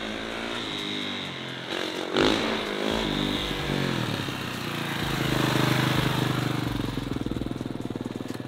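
Dirt bike engine revving through a wheelie. The pitch rises and falls, jumps sharply about two seconds in, then holds at a steady, louder note from about halfway as the wheelie is held.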